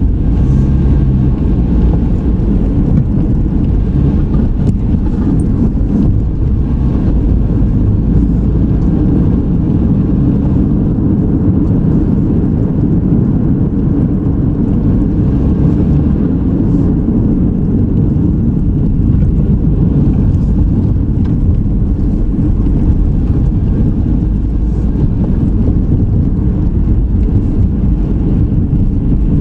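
A car being driven, heard as a steady low rumble of road and engine noise.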